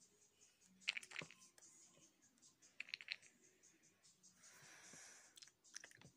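Faint clicks and taps from makeup items being handled close to the microphone, in three small clusters, with a soft rustle a little after the middle.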